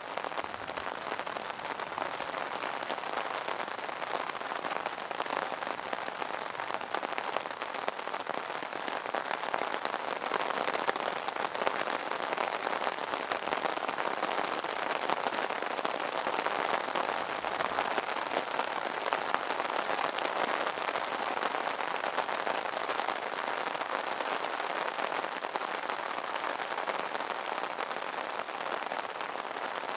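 Steady rain drumming on an umbrella's fabric canopy: a dense, even patter of drops.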